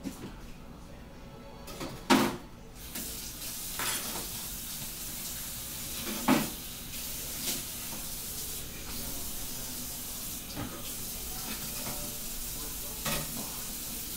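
Food frying in hot oil in a pan. There is a loud knock of a utensil or pan about two seconds in, then a steady sizzle starts soon after and carries on, with a couple more knocks against the pan later.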